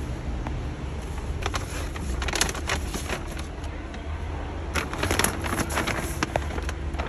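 Steady low rumble of a car or road traffic, with two clusters of rapid clicks and crackles, about one and a half and five seconds in.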